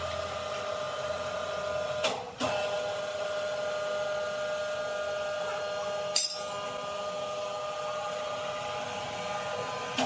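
Electric hoist motor running with a steady whine as it lifts a sawn wooden slab off the log. There is a short break with a knock about two seconds in, and a sharp clank about six seconds in.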